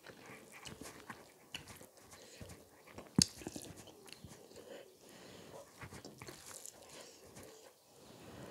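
Close-miked eating sounds of a person eating rice and chicken curry by hand: irregular chewing and mouth sounds mixed with fingers working the food on the plate, with one sharp click about three seconds in.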